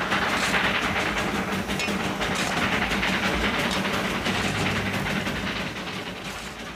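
Darjeeling Himalayan Railway narrow-gauge steam train running along the line: a dense clattering noise over a steady low hum, growing fainter near the end.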